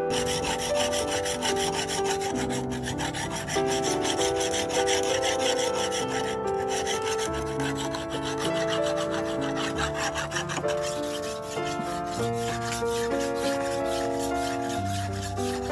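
Quick, repeated back-and-forth rubbing strokes of steel on steel and stone: a hand file worked along a forged knife blade, then the blade ground on a whetstone. Background music with held keyboard notes plays underneath.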